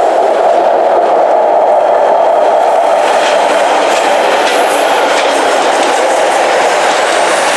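Northern diesel multiple unit passing close alongside the platform: a loud, steady rumble of the engines and the wheels on the rails, with a few faint clicks of the wheels over rail joints in the middle.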